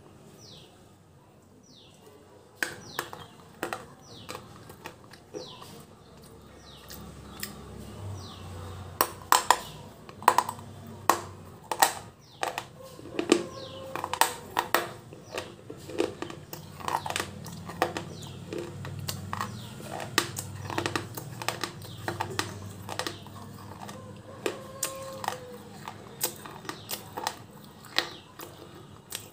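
Close-up crunching of slate being bitten and chewed: sharp, irregular cracks and crunches that begin a couple of seconds in and come thick and fast through the middle.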